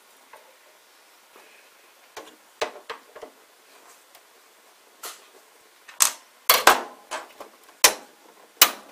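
Sharp clicks and knocks from a screwdriver and hands working the screws and panels of a platewriter's casing: a few light taps in the first half, then a run of louder knocks from about six seconds in.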